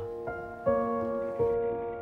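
Slow background piano music: a few notes struck and left to ring, overlapping.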